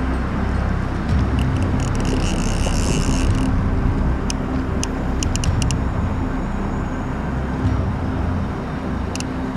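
Steady low rushing of river water, with short high buzzes a second or so in and scattered sharp ticks a few seconds in and near the end, typical of a fly reel's click drag giving line to a hooked salmon.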